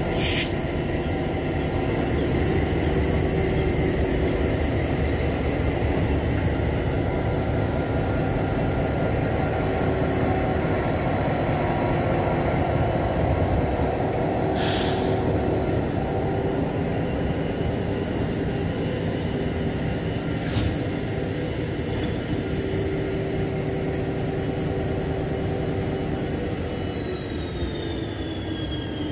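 Pacific National diesel-electric freight locomotives running with a steady engine rumble and a high, even whine. A few short hisses break in, two of them about halfway through, and near the end the whine and the engine note drop in pitch together.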